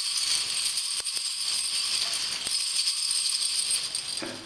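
A string of small jingle bells shaken steadily by hand, a continuous bright jingling that fades out near the end.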